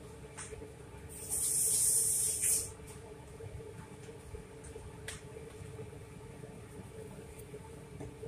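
An aerosol spray hissing in one steady burst of about a second and a half, starting a little over a second in, with a few faint clicks around it.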